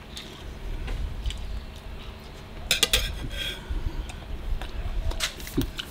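Cutlery clinking and scraping against a dish while a meat pie is cut and eaten, with a cluster of sharp clinks about three seconds in.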